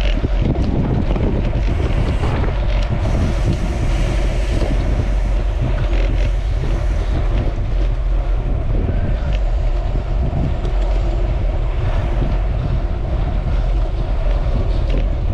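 Wind buffeting the microphone: a loud, steady low rumble with a rushing hiss over it.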